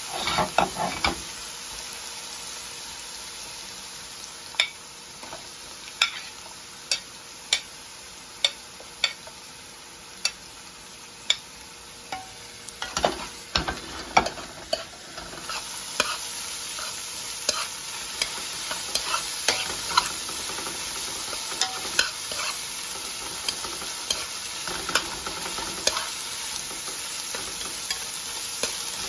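Vegetables stir-frying in a hot pan: a steady sizzle with a utensil clicking and scraping against the pan, irregularly about once a second.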